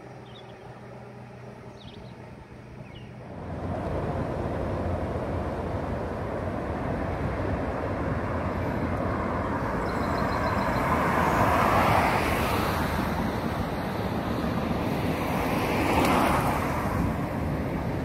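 Road traffic on a two-lane bridge: a steady rush of tyre noise that sets in suddenly a few seconds in. Cars swell past about two-thirds of the way through and again near the end.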